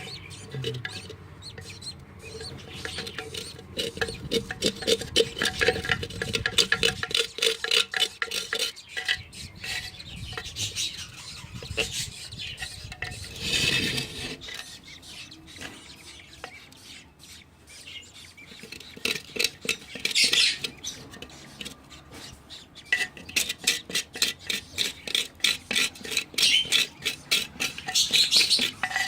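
Rapid scraping and scratching strokes from cleaning out the inside of a budgie nest pot, coming in spells with short pauses between them.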